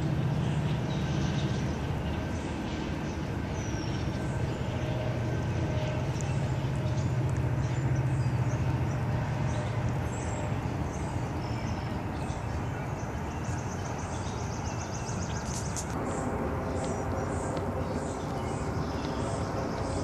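Small birds chirping, with a fast trill about three-quarters of the way through, over a steady low hum.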